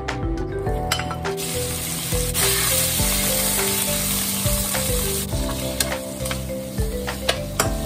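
Thin slices of pork sizzling in hot oil in a nonstick frying pan, stirred and scraped with a spatula. The sizzle grows stronger about two and a half seconds in, with scattered clicks of the spatula against the pan, over light background music.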